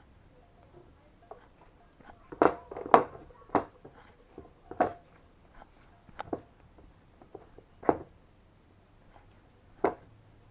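Hands kneading and squeezing a sticky lump of oatmeal dough in a bowl: irregular sharp slaps and squelches, about seven louder ones scattered through.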